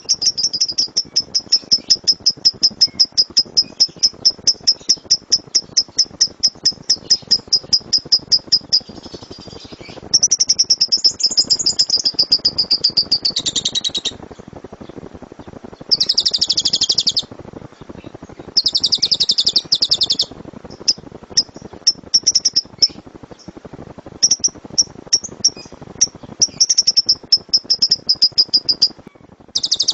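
Lovebird singing loud 'gemuruh' shot-like song. It opens with a fast run of sharp high chirps, about five a second, then breaks into dense trilled bursts and shorter chirp runs.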